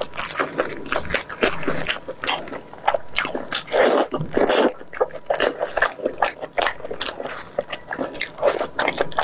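Eating sounds of braised pork knuckle: biting into the skin, wet chewing and mouth clicks, coming thick and irregular throughout.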